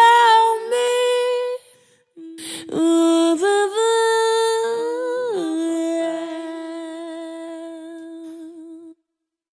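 A female singer humming wordless notes with no accompaniment. A short phrase comes first, then after a brief pause a phrase that slides down onto one long held note, which fades away and stops near the end.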